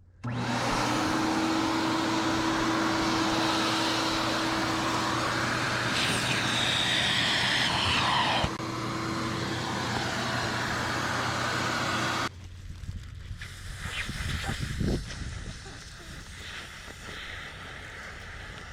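A loud motorized machine runs steadily with a constant hum, starting abruptly and cutting off about twelve seconds in; a few knocks follow.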